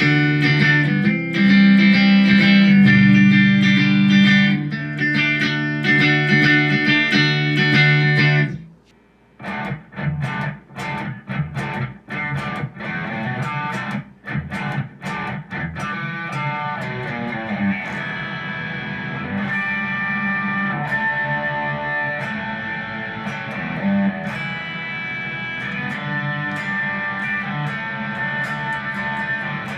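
Squier electric guitar played through M-VAVE MK-300 multi-effects presets. Thick sustained chords give way to a short silence about eight seconds in, as the preset changes. A different tone follows, with short, choppy picked notes at first and then ringing notes and chords.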